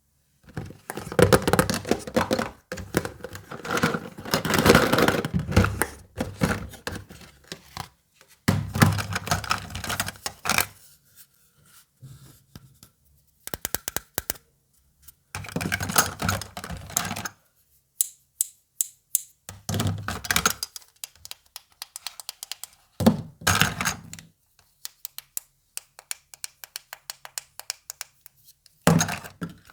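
Miniature plastic toy doctor set and its packaging being unwrapped and handled. Bursts of crinkling and rustling come with clicks and taps, separated by short pauses.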